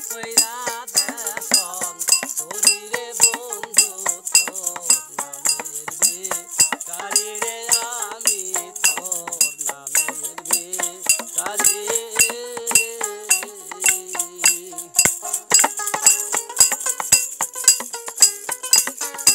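Bengali folk music: a melody held in long, wavering phrases with vibrato over a steady metallic jingle of small hand percussion keeping time, about three to four strokes a second, with a long-necked lute in the ensemble.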